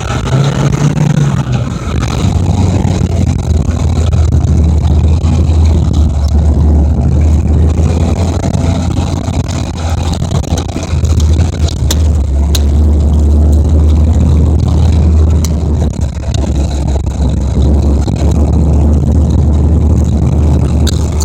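Off-road vehicle's engine running steadily at low revs under load, with a few sharp knocks partway through.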